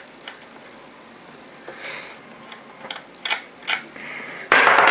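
Small metal clicks and handling rustle as a muzzleloader's screw-in breech plug is worked loose by hand. About four and a half seconds in comes a loud scraping rub, the hand brushing over the camera's microphone.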